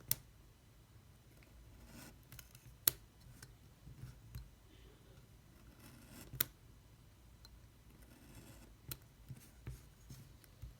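Paper parts being cut out: a few sharp snips, four of them loudest, with soft rasping of the blade through paper in between.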